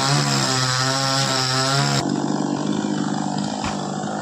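Two-stroke chainsaw engine running with a steady, slightly wavering note. About halfway through the sound changes abruptly to a quieter, different engine note.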